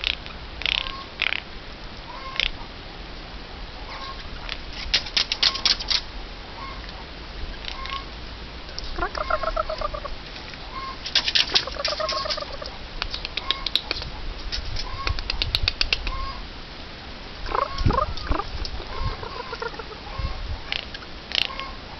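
Eurasian jay close up, making runs of sharp clicks and taps and a few short wavering calls.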